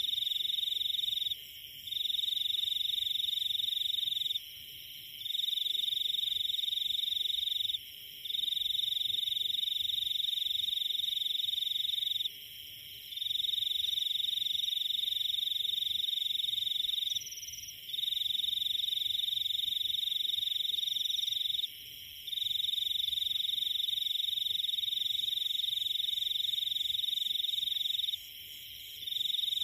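A steady high-pitched animal call: one continuous trill that stops for about half a second every four seconds or so, over faint low background noise.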